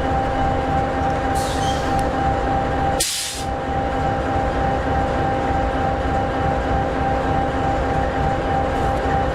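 EMD 16-710G3B 16-cylinder two-stroke diesel in an SD60E locomotive idling steadily, a low rumble with a steady hum. Short hisses of air cut in about one and a half seconds in and again, sharper, about three seconds in.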